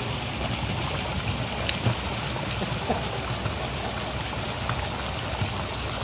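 Steady splashing of water in a swimming pool, from fountain jets arcing into the pool and a child paddling through the water, over a low rumble, with a few small sharper splashes about two to three seconds in.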